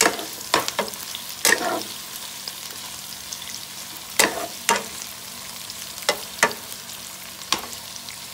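Hot Italian sausages and vegetables sizzling steadily in a frying pan, with about nine sharp knocks at uneven intervals as the food is worked in the pan.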